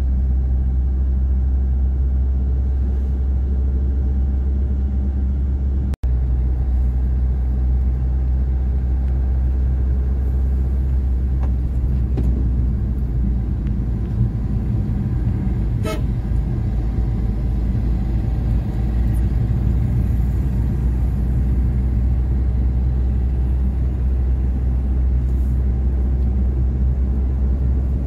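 Steady low rumble of a vehicle driving, heard from inside the moving vehicle: engine and road noise. There is one sharp crack about sixteen seconds in, and the sound drops out for an instant about six seconds in.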